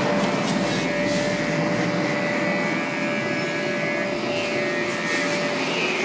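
A steady rushing noise, like a small motor or blower running, with a faint held tone and two brief swells in level.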